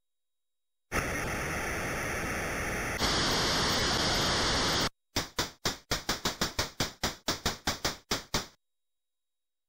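Synthesized electronic noise: a steady static hiss that steps louder and brighter partway through and cuts off, followed by a quick run of about sixteen short decaying noise clicks, roughly five a second.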